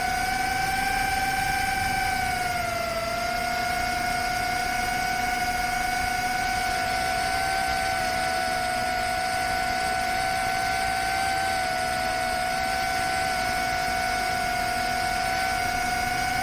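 Rekon 5 FPV quadcopter (6S build) in flight, its brushless motors and propellers giving a steady high whine over a rushing hiss. The pitch dips briefly about three seconds in, then holds level.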